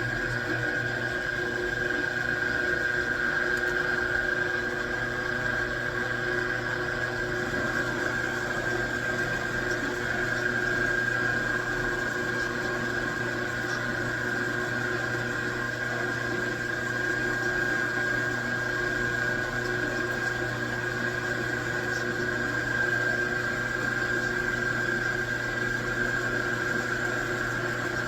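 Metalworking machine tool running steadily: a constant high whine over a low hum, with no change in pitch or level.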